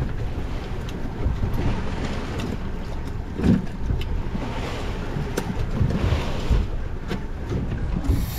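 Wind buffeting the microphone on an open boat deck, over the wash of the sea, with a few short knocks and a thump about three and a half seconds in.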